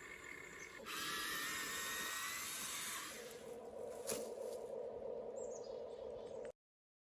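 Small electric motors and gearboxes of a toy remote-control excavator whining as it digs, first a high wavering whine, then a lower steady hum with a click, cutting off suddenly near the end.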